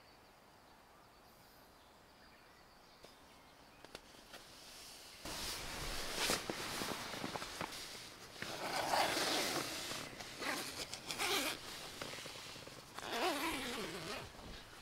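A tent door zipper being pulled open in several strokes, with the nylon tent fabric rustling, starting about five seconds in.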